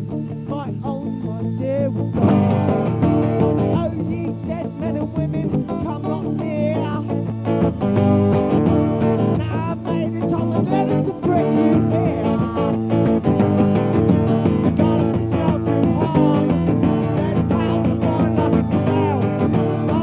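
A band's recorded rock song with guitar and keyboard, at a steady beat, filling out about two seconds in.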